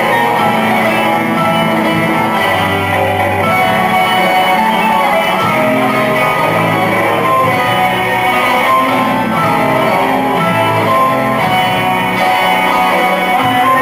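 Turkish folk dance music carried by plucked string instruments, a steady unbroken tune over moving bass notes.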